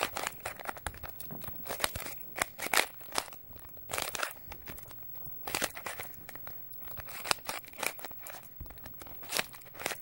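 Rubik's cube being twisted by hand: quick, irregular runs of plastic clicking and scraping as the layers turn.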